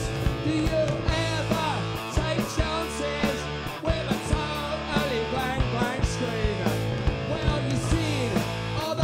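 Punk rock band playing live: electric guitars, bass and drums driving a fast, steady beat.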